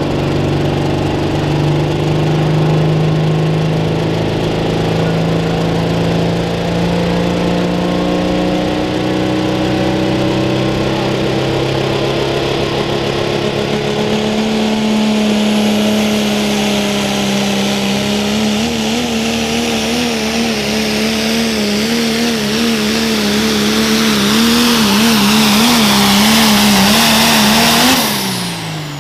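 Pro Stock diesel pulling truck, a Dodge Ram with a Cummins diesel engine, running under full load as it pulls the sled. The engine note climbs slowly, then wobbles quickly up and down while a high whistling hiss grows louder. About a second before the end the engine note falls away sharply as the pull ends.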